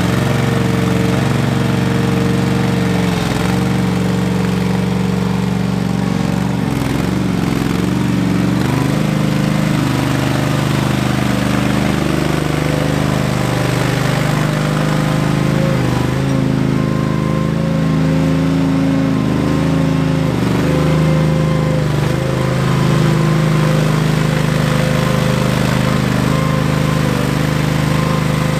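Ingersoll 7020L garden tractor's engine running steadily as the tractor drives through mud, its note dipping briefly several times.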